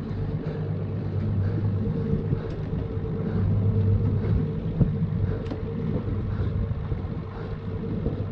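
Outboard motor idling with a steady low drone.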